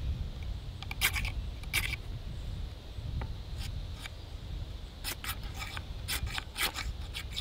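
Short rasping scrapes of a fire-steel striker, striking sparks onto char cloth to catch an ember. A few spaced strokes come first, then a quicker run of about seven strokes from about five seconds in.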